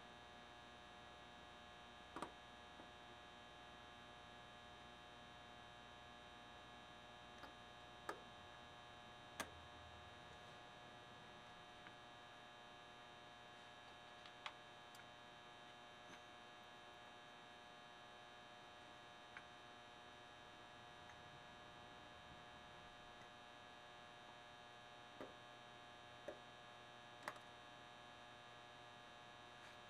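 Near silence with a steady electrical hum. A dozen or so faint, sharp clicks are scattered through it as steel piston rings are handled and fitted into the grooves of a 70cc big-bore moped piston by hand.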